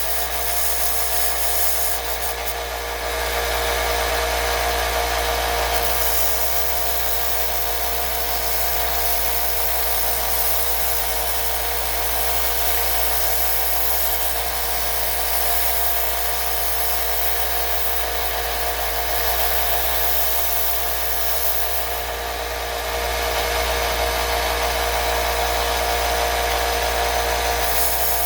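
Power sander running steadily as a screwdriver blade is ground against its belt, the hiss swelling a few seconds in and again near the end as the metal is pressed harder into the belt.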